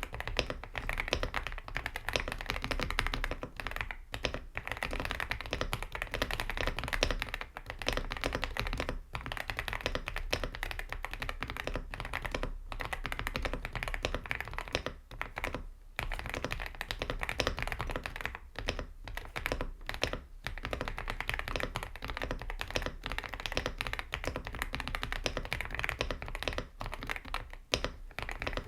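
Continuous fast typing on an Aula F75 mechanical keyboard with Gateron Jade Yellow Pro V3 linear switches: a dense run of key clacks with a few brief pauses.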